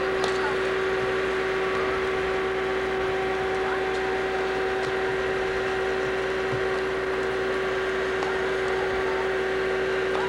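A steady hum: one constant mid-pitched tone over an even hiss, with a few faint ticks.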